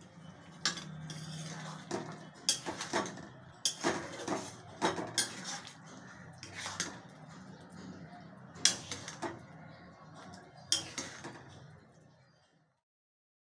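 A spatula clanking and scraping against a metal kadhai as a simmering potato and drumstick curry is stirred. It gives irregular sharp clanks every second or two over a low bubbling, and stops abruptly near the end.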